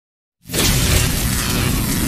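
Silence, then about half a second in a loud intro sound effect cuts in abruptly: a deep booming rumble under a rushing whoosh, the sound of an animated logo sting.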